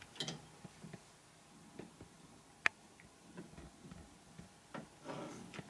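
Faint scattered clicks and light taps from a wooden toy train car and toy crane being handled, with one sharp click about two and a half seconds in.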